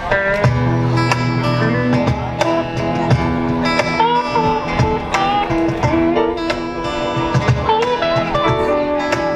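Live rock band music with strummed guitars and a singing voice.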